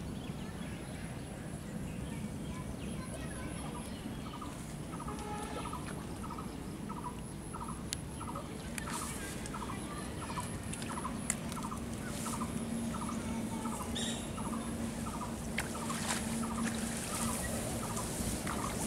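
A bird calling a short note over and over, about two calls a second, starting a few seconds in. A steady high insect trill runs underneath.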